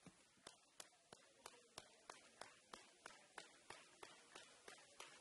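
Near silence with faint, evenly spaced clicks, about three a second, over a faint steady tone.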